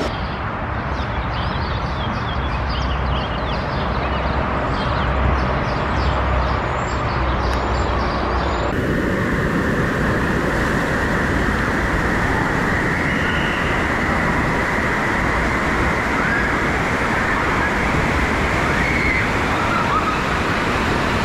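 Steady rush of pumped water running down water slides and splashing into run-out lanes and pools, echoing in a large indoor water park hall. There are faint distant voices in the first part, and the sound changes abruptly about nine seconds in.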